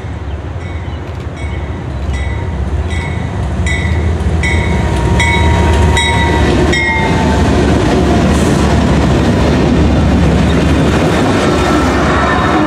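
A CSX freight train passing, led by four diesel locomotives (two GE ES40DCs, an EMD SD40-3 and a GE CW44AC) whose engines rumble louder as they approach and go by. A bell rings about once every three-quarters of a second until about seven seconds in, as the locomotives pass. The autorack cars follow with wheels clacking on the rails and a faint squeal near the end.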